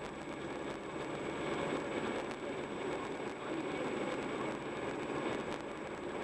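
Steady road and tyre noise of a car driving at an even speed, heard from inside the cabin.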